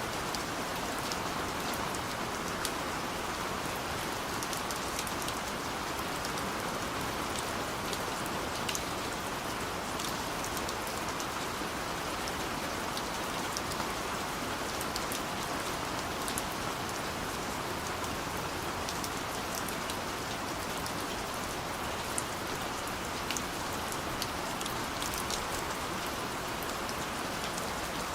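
Steady rain falling, with a constant hiss and many scattered drop ticks.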